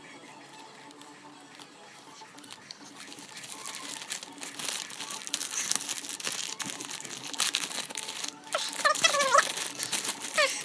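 Wrapping paper crinkling and tearing as a wrapped gift is unwrapped by hand. The rustling starts quietly and grows louder a few seconds in.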